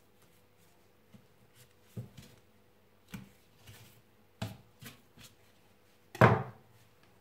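A few soft thumps and knocks of trimmed roe deer backstraps being set down on a wooden cutting board and a knife being laid down. The loudest thump comes about six seconds in.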